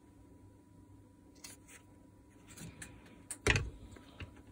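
Light clicks from handling the plastic drill parts, with one sharp knock about three and a half seconds in as the teal plastic housing half of the Makita drill is set down on the tabletop.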